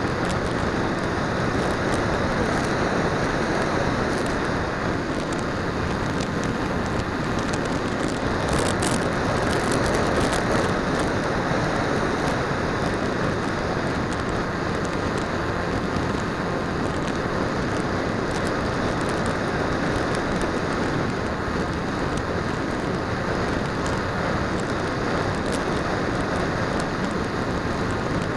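Steady rush of wind and motor noise from an RC flying wing in flight, recorded on its onboard 808 #16 keychain camera's microphone, with a few faint crackles about nine seconds in.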